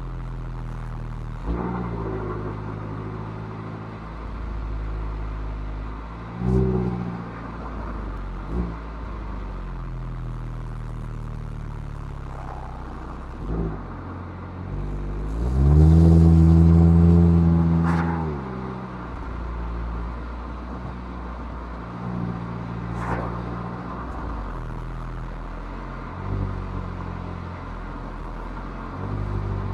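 Mazda MX-5's four-cylinder engine through its stock exhaust, pulling uphill at a steady, moderate note. About fifteen seconds in it gets much louder as the revs climb under acceleration for a couple of seconds, then drops away sharply before settling back to the steady drone.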